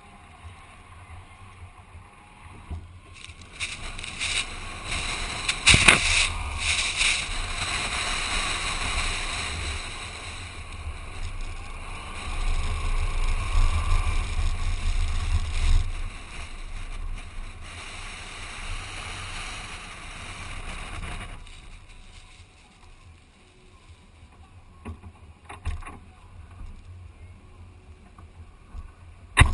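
Wind rush on the microphone with engine and tyre noise from a Toyota Land Cruiser Prado driving over sand dunes, picked up by a camera mounted on the vehicle's outside. It swells and is loudest around the middle, drops away about two-thirds of the way through, and a few sharp knocks come near the end.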